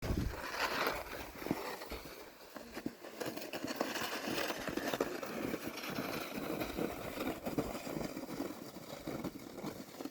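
Snow shovel scraping and pushing through snow, in irregular scrapes and crunches.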